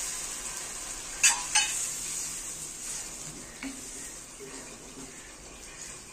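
Spiced masala sizzling in mustard oil in a cooking pan, the hiss dying away as the half cup of water just added cools it, while the mix is stirred and the utensil clinks sharply against the pan twice about a second in, then once more faintly.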